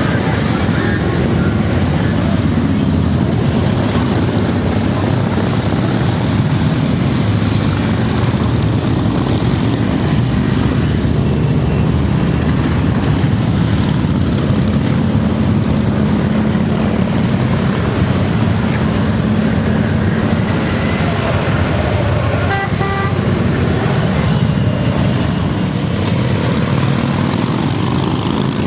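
Continuous rumble of many Harley-Davidson V-twin motorcycle engines riding past in a long procession. A horn sounds a few short beeps about three-quarters of the way through.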